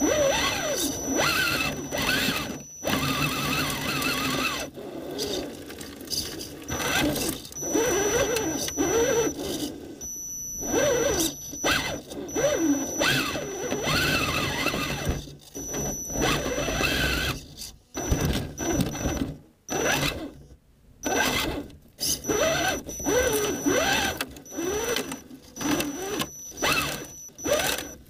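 Axial SCX10 Honcho 1/10-scale RC rock crawler's electric motor and geared drivetrain whining in stop-start bursts, the pitch rising and falling with the throttle, with short quiet gaps between, heard from right inside the truck's body.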